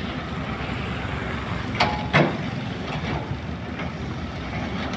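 Hydraulic excavators' diesel engines running steadily, with two sharp clanks about two seconds in, the second louder.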